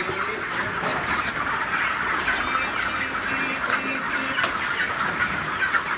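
A large flock of 26-day-old broiler chickens calling all at once, a dense, steady din of many overlapping chick calls.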